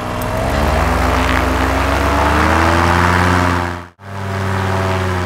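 Vittorazi Moster 185 single-cylinder two-stroke paramotor engine and propeller rising steadily in pitch as the throttle is opened toward full, then held at high revs to finish the warm-up. The sound cuts out for a moment about four seconds in and comes straight back at the same high revs.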